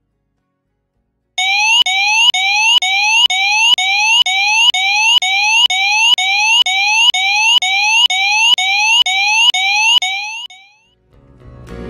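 Bed-exit alarm unit of a proximity sensing mat sounding a loud electronic alarm: a rapidly repeating rising chirp, about two a second, signalling that the patient has sat up and is leaving the bed. It starts about a second and a half in and stops suddenly near the end.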